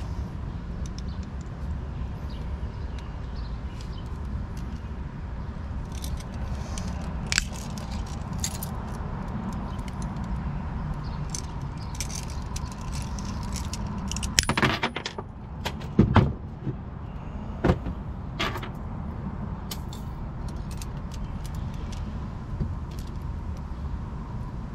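A steel chain clinking and jangling as it is handled, with a few sharp metallic clicks; about fifteen seconds in, a bolt cutter closes on a chain link and snaps through it in a short cluster of loud clacks. A steady low rumble lies underneath.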